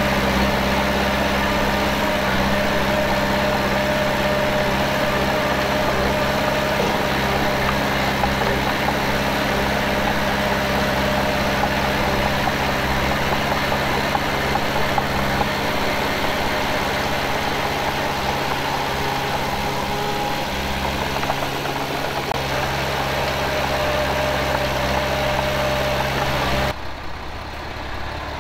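Diesel engine of a heavy earthmoving machine running steadily at low speed. Near the end the sound drops suddenly to a quieter, duller engine note.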